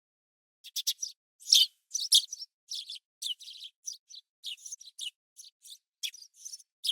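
Small songbirds chirping: a busy, irregular run of short, high chirps that starts about half a second in.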